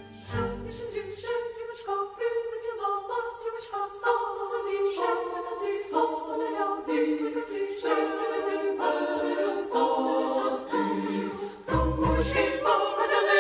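Background music: choral singing, slow sustained chords changing every second or so, with deeper low notes coming in near the end.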